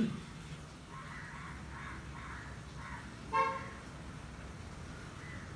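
Whiteboard marker drawing dashed lines: short scratchy strokes about three a second, with one brief squeak about three and a half seconds in.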